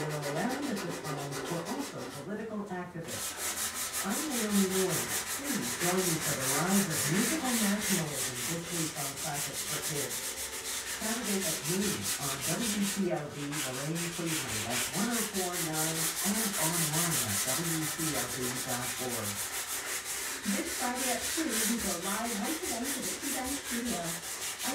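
Hand sanding with 180-grit sandpaper on a curved wooden case side: continuous back-and-forth rubbing strokes, with two short pauses.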